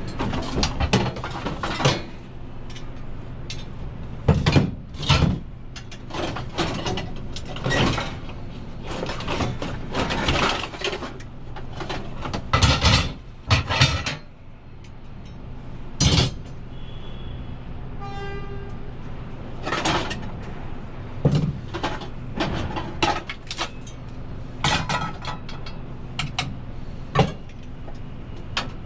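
Scrap metal clanking and banging as pieces are handled and dropped, at irregular intervals over a steady engine-like hum, with a brief tone about halfway through.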